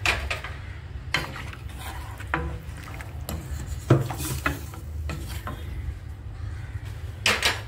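Wooden spatula stirring thin tomato rasam in a stainless steel kadai, with irregular scrapes and knocks against the pan. The loudest knock comes about four seconds in, with a few more near the end, over a steady low hum.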